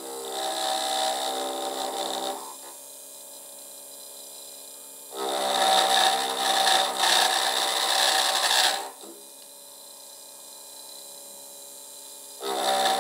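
End mill in a high-speed milling spindle mounted on a benchtop lathe, cutting an aluminium part on cross feed. There are three cutting passes, at the start, in the middle and near the end, each a harsh, chattering buzz, with the spindle whining steadily between them. The cut chatters, vibrating noticeably on the cross feed even at a reduced depth of cut.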